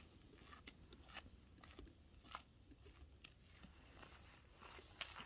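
Faint, irregular crunches and clicks over a low steady hum, a few sharper ones near the end.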